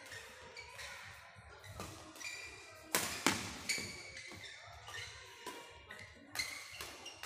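Badminton doubles rally: sharp cracks of rackets striking the shuttlecock, the loudest two close together about three seconds in and another near the end, with short squeaks between the shots.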